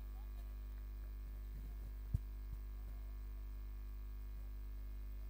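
Steady electrical mains hum on the audio line, with one sharp click about two seconds in and a fainter click shortly after.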